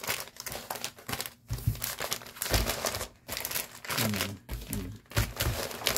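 Clear plastic packaging bags crinkling and rustling as several packs of briefs are handled and shuffled together, in irregular crackly bursts.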